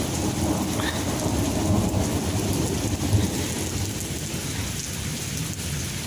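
Heavy rain pouring steadily, with a low rumble of thunder running underneath.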